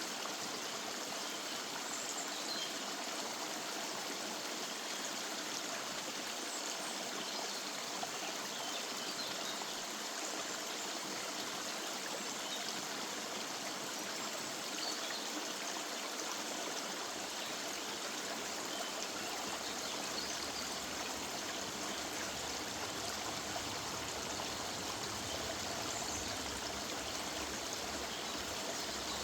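River water running steadily through woodland, with a few faint bird chirps high above the flow.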